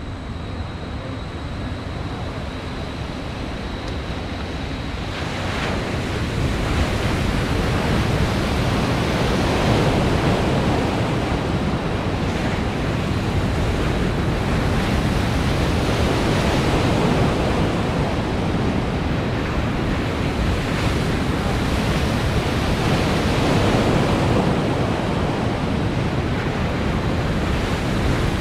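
Machine-made waves of an artificial surf pool breaking and rushing, with wind on the microphone. The rushing swells about five seconds in and stays loud.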